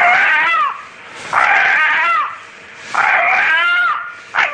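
A rooster crying out over and over, about three loud cries of roughly a second each, evenly spaced, with a fourth starting near the end. Each cry bends up and then falls away, and it is heard as the rooster saying the name of God, 'Allah'.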